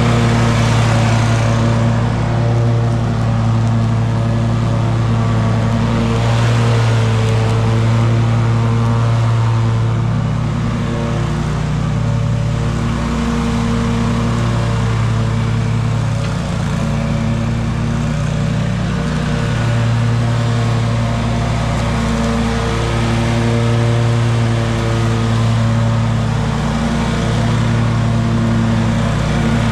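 An engine running steadily at a constant speed, its pitch holding even with only slight swells in level.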